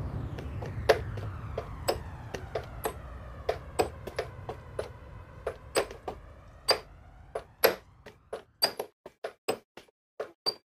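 Sharp clicks and knocks at irregular intervals, coming faster and closer together toward the end, over a low hum that fades away.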